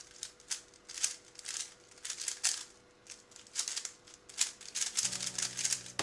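MoYu Weilong WR M 3x3 speed cube being turned very fast in a speedsolve: quick runs of plastic clicking and clacking as the layers snap round.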